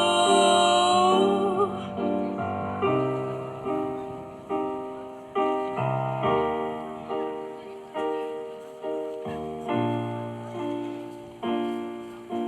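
Music: a singer's last held note fades out about two seconds in, then a piano plays a steady run of chords, each struck and fading, in an instrumental break.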